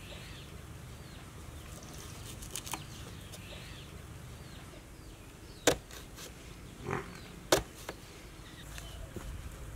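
Kitchen knife cutting a red onion on a wooden chopping board: a few sharp knocks of the blade against the board, the two loudest past the middle, about two seconds apart, over a low steady background.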